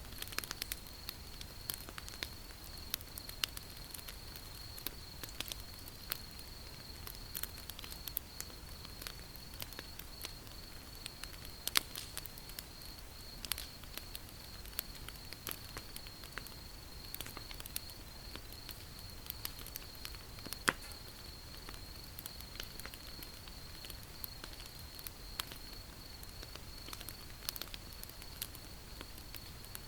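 Wood fire crackling: irregular sharp pops and snaps, a few louder than the rest, over a low steady rumble. A steady high-pitched tone runs underneath.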